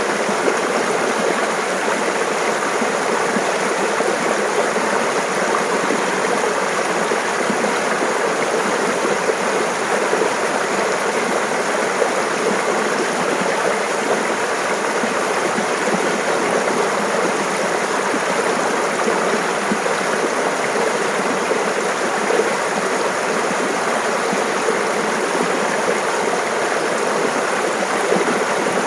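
A mountain stream babbling over rocks in a steady, even rush of water.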